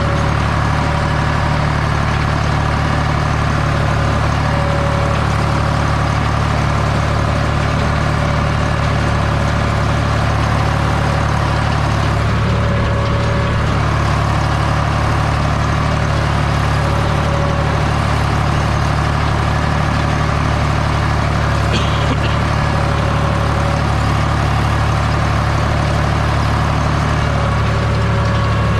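Deutz 5206 tractor's air-cooled four-cylinder diesel running steadily under load while pulling a seedbed harrow, heard from inside the cab.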